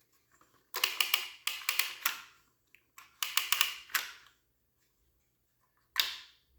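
Clicking and rattling of Milsig T17 paintball marker parts being handled and worked, in about four short clusters of sharp clicks with quiet gaps between them.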